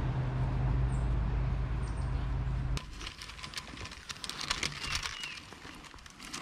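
A steady low hum with a hiss over it, which cuts off abruptly about three seconds in. Then a quick run of light clicks and rustles as plastic cordage fishing line is cast off a plastic bottle used as a hand spool, with a few faint high chirps.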